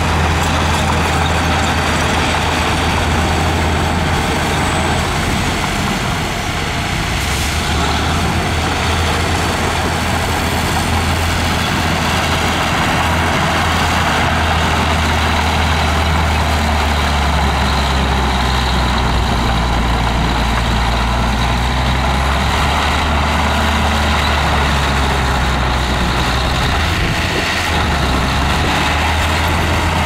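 Heavy diesel engines running steadily with a deep drone: dump trucks tipping their loads, then a Komatsu crawler bulldozer pushing dirt.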